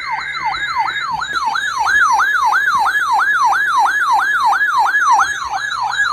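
Electronic siren alert tone, a fast yelp sweeping up and down about four times a second, sounding with a severe thunderstorm warning broadcast. A steady high tone sounds alongside it for about the first second.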